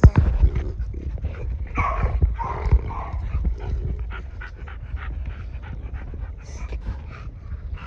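Brindle American bully dog panting close by, with scattered short clicks and rustles.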